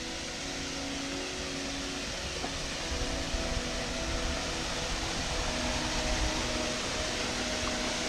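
Rushing water of a small waterfall falling into a pool: a steady hiss that grows gradually louder as it is approached, with a few low bumps underneath.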